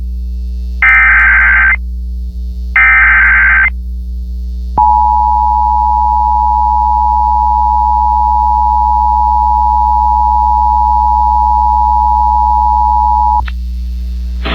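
Emergency Alert System header over the radio: two roughly one-second bursts of warbling SAME data tones about a second apart. Then comes the harsh two-tone EAS attention signal, held steadily for about eight and a half seconds before cutting off, announcing a severe thunderstorm warning. A steady low hum runs underneath.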